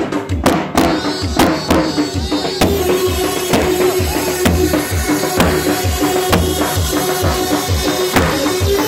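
Live Kurdish folk dance music: a davul bass drum keeping a steady beat under a held, sustained melody line.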